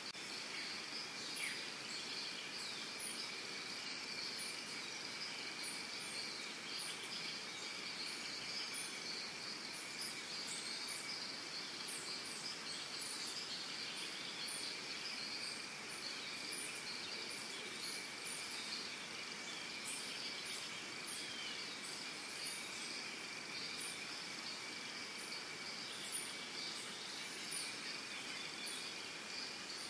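Steady high insect drone from the surrounding vegetation, held at two pitches, with short high chirps scattered throughout.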